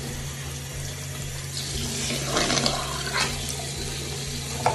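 Bathroom sink tap running steadily while water is splashed onto a face to rinse off foaming cleanser, with the loudest splashes a little past two seconds in and again around three seconds.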